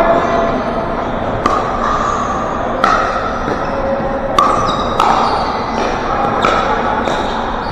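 Pickleball paddles hitting plastic balls: five or six sharp pops at irregular intervals, echoing in a large gym over a steady hall din.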